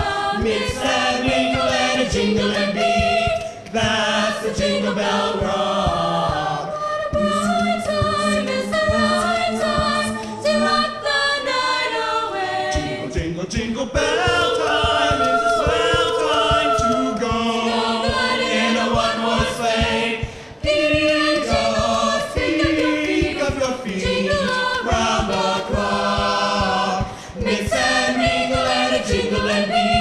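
High-school mixed-voice a cappella choir singing in several-part harmony, without instruments.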